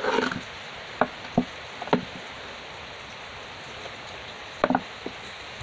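Steady rain, with several short sharp sounds close by: a cluster right at the start, three single ones between one and two seconds in, and a pair near the end.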